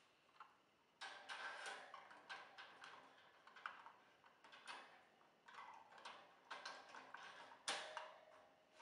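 Clear plastic feeder cup being fitted onto the wire bars of a bird cage: a string of light plastic clicks and rattles against the metal wire, with a louder click near the end.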